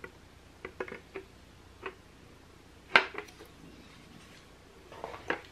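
Scattered light knocks and clicks of a rifle barrel and its wooden stock being handled as the barrel is set back into the stock, the sharpest knock a little under three seconds in.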